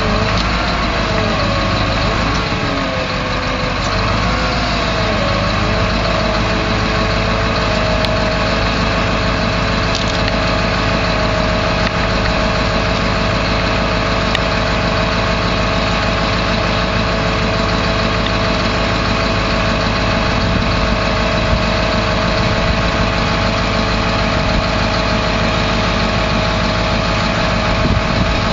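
Detroit 8.2-litre V8 diesel engine of a 1989 GMC TopKick truck idling. Its pitch wavers up and down over the first few seconds, then holds steady.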